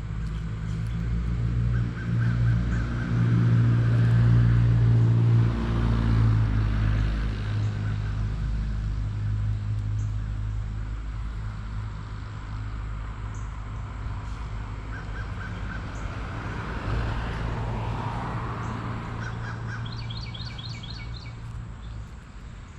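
A low, steady motor drone swells over the first few seconds and then slowly fades. Birds chirp over it, with a quick run of high notes near the end.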